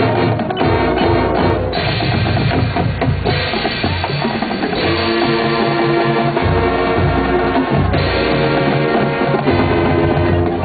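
Marching band playing loudly: brass holding chords that change every second or two over a drumline of snare and bass drums.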